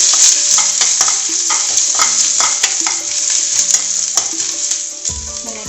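Chopped ginger frying in hot coconut oil with mustard seeds and curry leaves: a steady sizzle, with a spoon stirring and clicking against the pan many times.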